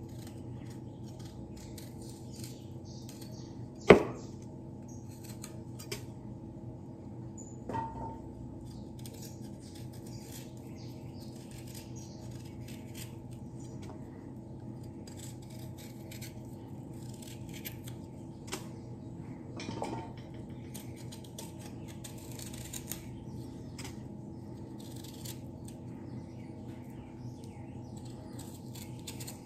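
Small kitchen knife peeling taro root by hand: scattered light scraping strokes as the blade cuts away the skin, over a steady low hum. A sharp knock about four seconds in, and softer clicks near eight and twenty seconds.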